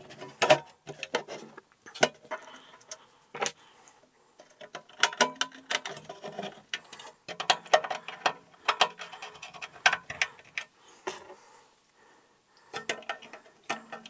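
A Synology DS1621xs+ NAS's metal case being put back together: irregular clicks, taps and rattles of the chassis panels as they are handled and fitted. A screwdriver turns and seats the screws in the back panel, with small metallic ticks.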